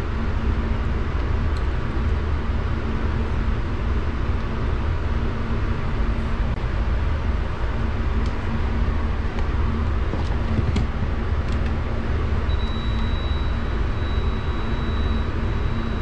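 Steady low rumbling background noise, with a few faint clicks as test leads and a relay are handled.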